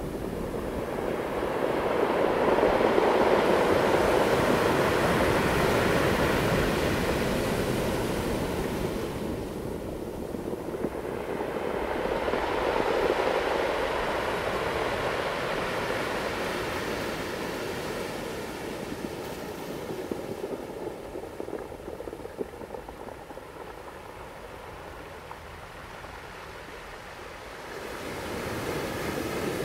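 Ocean waves breaking and washing in. The surf swells and fades, loudest about three seconds in and again around thirteen seconds, then quieter for a while before another wave rises near the end.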